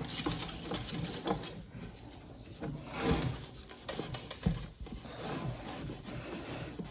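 Microfiber cloth scrubbing scum off aquarium glass, a run of irregular rubbing strokes.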